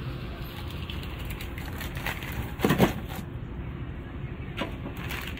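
A clear plastic bag rustling as a dry instant-noodle block is put into it, with a short, louder crinkling crunch a little past halfway and a smaller one near the end, over steady background noise.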